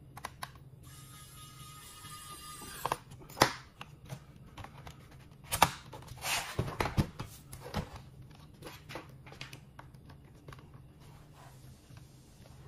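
Pen-style electric screwdriver whirring for about two seconds as it drives a screw into the plastic underside of a laptop. This is followed by sharp clicks, knocks and rustling as the laptop is handled and turned over on the desk.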